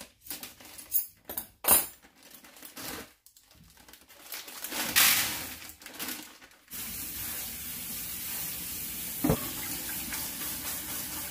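Scissors snip open a plastic bag of frozen corn, and the frozen kernels are poured rattling into a plastic colander. Then a kitchen faucet runs steadily into a stainless steel sink over the colander, thawing the corn with hot water, with a single knock partway through.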